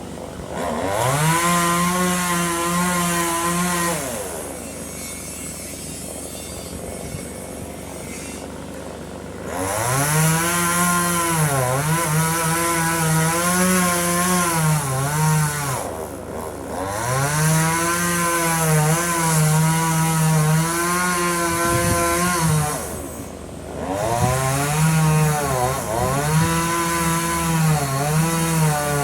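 Two-stroke chainsaw revving to full throttle in four long bursts while cutting wood, its pitch wavering under load, and dropping back to idle between bursts, the longest idle lasting about five seconds.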